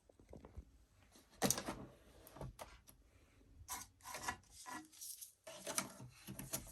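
Irregular rubbing and scraping handling noises with scattered light clicks, the loudest scrape about a second and a half in.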